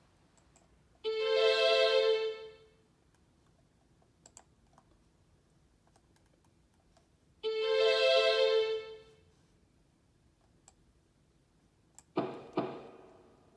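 Music: two long, steady held notes at the same pitch, several seconds apart, played on a musical instrument. Near the end come two short struck notes that die away.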